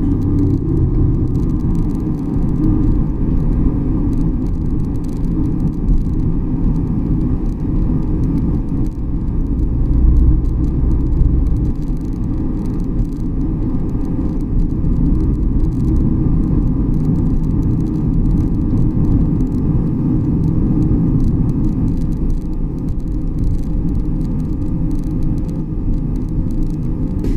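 Steady road and tyre rumble of a 2018 BMW 750i (G11) on the move, heard from inside the trunk, with small ticks and creaks scattered throughout. The creaking comes from the rear suspension, which also has a knocking fault.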